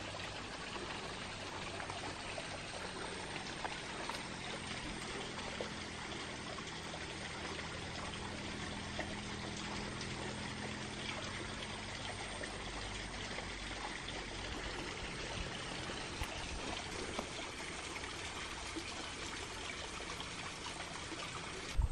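Steady rush of flowing water, unchanging throughout.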